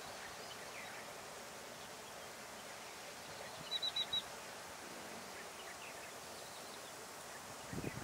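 Steady outdoor background hiss, broken about halfway through by a quick run of four short, high chirps from a small bird, with a few fainter chirps elsewhere. A low rumbling starts just before the end.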